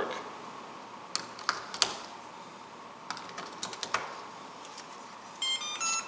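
AA batteries snapped one by one into the battery compartment of an Amazonbasics electronic keypad deadbolt, several sharp plastic-and-metal clicks. Near the end the lock powers up with a short tune of electronic beeps, its sign that the batteries are in the right way round.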